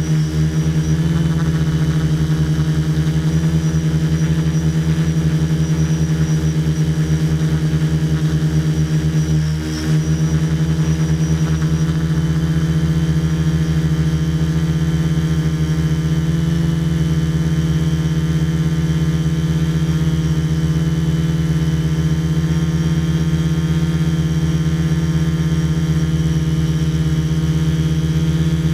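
Multirotor drone's electric motors and propellers running in flight: a loud, steady buzzing hum, heard close up from the camera mounted on the craft. The pitch and level dip briefly about nine to ten seconds in.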